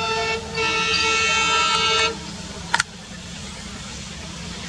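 Diesel locomotive's multi-tone horn: a held blast with a brief break about half a second in, sounding on until about two seconds in, then a quick double toot near three seconds. The engine's low rumble runs underneath as the train approaches.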